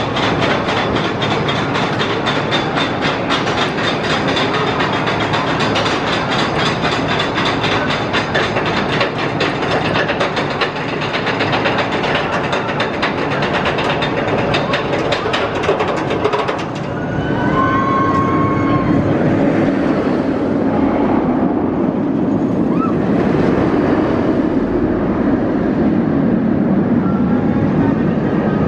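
Steel stand-up roller coaster train climbing its chain lift hill, the chain and anti-rollback clattering in a rapid run of clicks. About 17 seconds in the clatter stops as the train crests and drops, and a lower, steady rumble of the train rolling along the steel track takes over.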